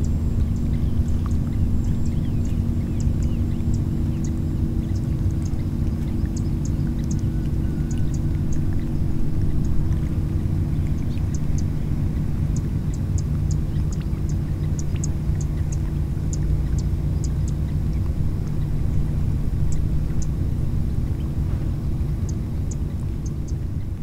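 A steady low rumble with a constant low hum under it, and many short, faint high ticks scattered throughout.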